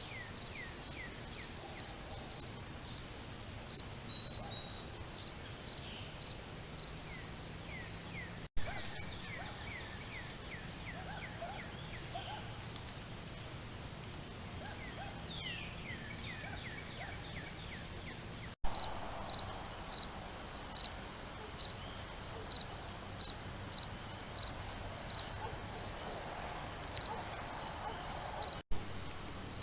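A cricket chirping in a steady rhythm, about two short, high chirps a second. It falls silent for about ten seconds in the middle, then resumes. Fainter chirps from other insects are heard underneath.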